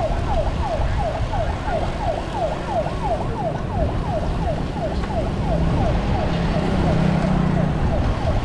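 An electronic siren yelping in quick falling sweeps, about four a second, over wind and tyre rumble from the ride. A low drone joins for a couple of seconds past the middle.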